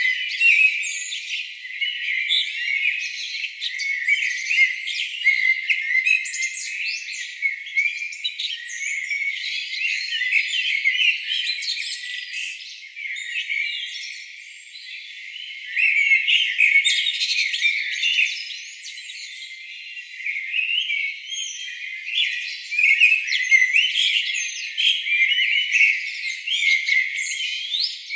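Birdsong: many birds chirping and trilling at once in a dense, continuous chorus, with quieter lulls about halfway through and again a few seconds later. The low end is cut away, leaving only the high-pitched calls.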